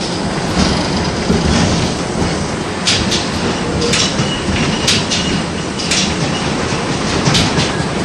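LVS-86K tram heard from inside the car as it runs along the track: a steady rolling rumble broken by sharp, unevenly spaced clacks from the wheels on the rails, with a faint high wheel whine about halfway through.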